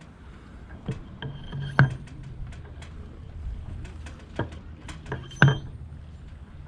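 Brass belaying pins being dropped into their holes in hardwood rat boards: a few separate sharp knocks, some with a short bright metallic ring, the loudest about two seconds in and again past five seconds.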